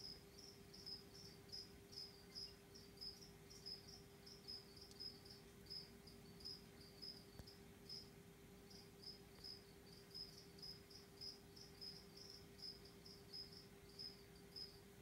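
A cricket chirping steadily, faint, about two short high chirps a second, over a faint steady low hum.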